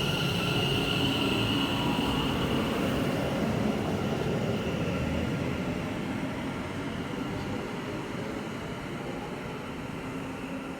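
West Midlands Railway Class 730 electric multiple unit pulling away from the station, with a steady high whine over the running noise. It fades gradually as the train leaves.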